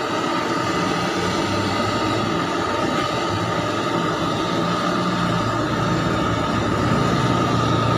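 Steady, loud roar of a gas burner firing under a large pot of chicken in spiced broth. Low humming tones come in about halfway and grow a little stronger near the end.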